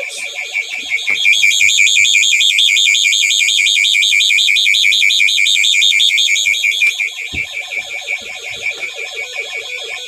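Micromark burglar alarm siren going off, very loud: a high-pitched, rapidly pulsing warble. It drops in level about seven seconds in and cuts off suddenly at the end.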